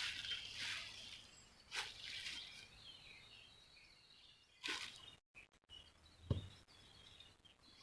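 Faint outdoor background with small birds chirping, a hiss of moving water fading over the first second, and a few brief knocks, the loudest a dull thump about six seconds in.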